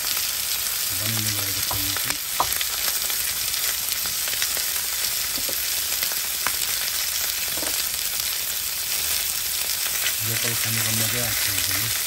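Chunks of fatty pork belly sizzling in hot fat in a black wok: a steady hiss with scattered pops and crackles.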